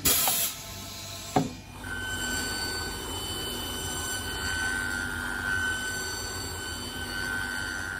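A sole press releases with a short hiss and a sharp knock. Then a shoe finishing machine runs with a steady whine as the edge of a newly stuck leather sole is trimmed against its cutter wheel.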